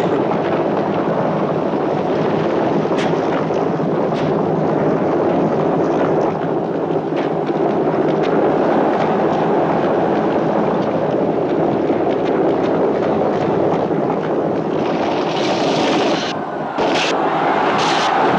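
Galloping horse teams and rumbling chariot wheels in a continuous dense roar, with a few sharp cracks about three and four seconds in. Near the end the roar dips briefly, then sharp cracks come twice.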